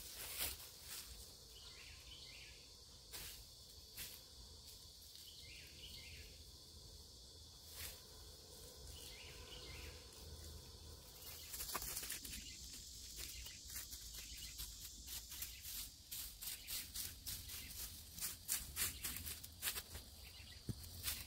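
Insects in the background, then from about halfway a quick run of scraping, crackling strokes through dry leaf litter, as a garden rake is dragged over the leaves.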